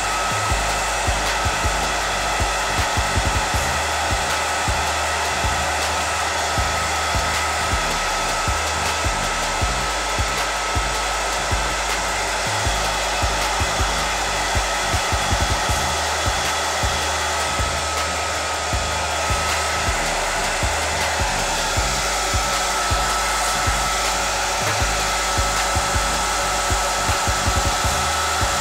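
Handheld hair dryer running steadily close to the hairline, a rush of air with a steady high motor whine, drying and setting the laid baby hairs at the wig's edge.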